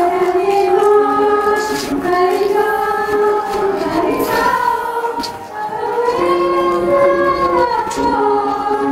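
Music with singing: voices holding long notes and gliding between pitches in a sung melody.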